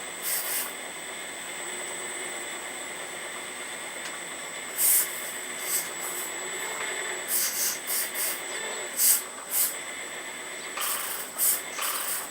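Earth Digger 4200XL RC hydraulic excavator's pump running with a steady high whine, broken by a dozen or so short hissing bursts in clusters as the hydraulic controls are worked.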